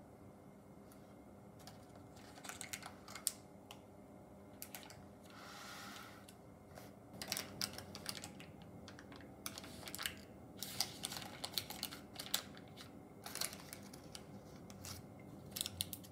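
Stiff paper crinkling and crackling in short irregular crackles as the folded walls of a paper mold are peeled down and flattened away from a slab of set chocolate ganache.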